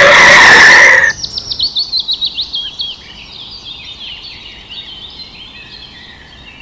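A loud, steady-pitched tone for about a second cuts off abruptly. Songbirds then sing: a rapid run of falling chirps, then quieter, varied calls.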